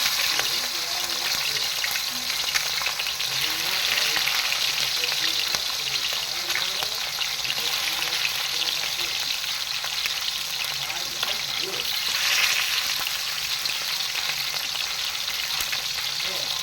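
Food sizzling as it fries in a pan: a steady hiss with scattered small ticks, swelling briefly about twelve seconds in.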